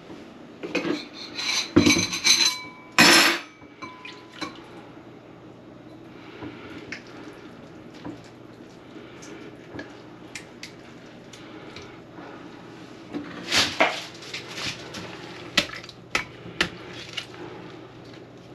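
Dishes and metal clattering and clinking in two bursts: the first about a second to three seconds in, with brief ringing tones, and the second about thirteen to seventeen seconds in.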